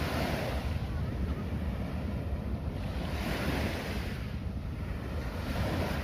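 Small waves washing onto a sandy beach, the hiss of the wash swelling about every three seconds, with wind buffeting the microphone as a steady low rumble.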